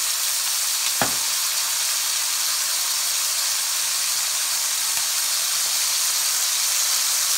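Pork steaks sizzling steadily in hot oil in an enamelled cast-iron skillet, with a single light knock about a second in.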